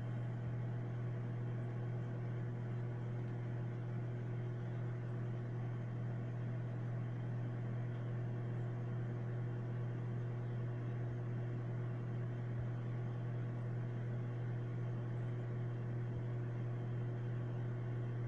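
Microwave oven running mid-cycle: a steady low hum with an even hiss above it, unchanging throughout.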